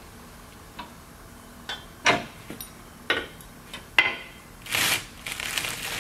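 Steel hitch mount and frame of a truck spreader being handled: about five sharp metal clicks and knocks, two of them loud, then a rasping scrape of metal sliding on metal through the last second and a half as the mount is slid into position.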